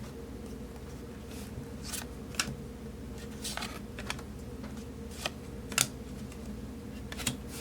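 Trading cards being flipped and slid through the hands one at a time: short card-stock swishes and light snaps, roughly one a second, with no regular rhythm.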